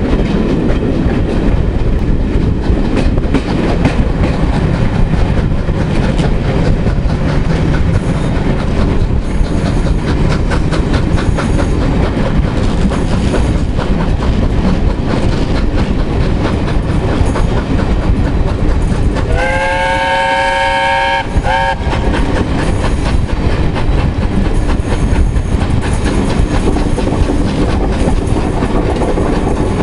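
Coaches of a train hauled by BR Britannia class steam locomotive 70013 Oliver Cromwell running at speed, heard from an open carriage window: a steady rumble with wheels clicking over rail joints. About two-thirds of the way through, a train's warning whistle sounds once for about two seconds.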